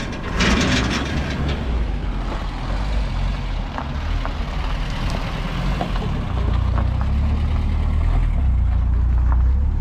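A metal gate clatters about half a second in, over a steady low engine-like rumble that grows louder in the last few seconds.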